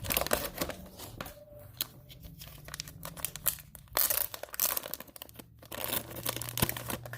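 A sports card pack's wrapper being torn open and crinkled by hand, in a run of quick crackling tears.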